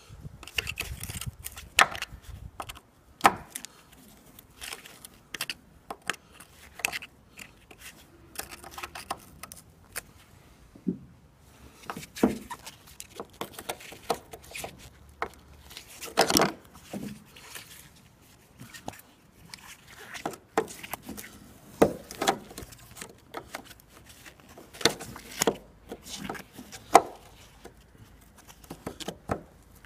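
Irregular metallic clicks and knocks of pliers gripping and breaking off pieces of corroded strut-top mount nuts whose heads have been split into four.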